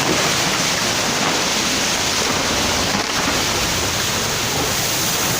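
Loud, steady rush of fast-flowing floodwater, an even wash of noise with no distinct events.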